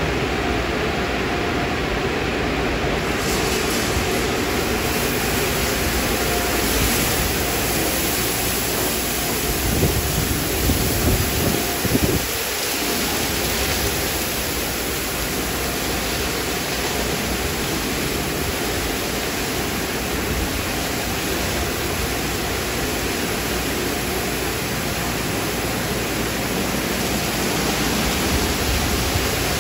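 Automatic car wash equipment running: water spraying over spinning cloth brushes, a steady rushing noise.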